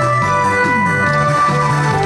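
Electronic saxophone (wind synthesizer) playing a held, organ-like melody through the PA, over a backing track with a pulsing bass line.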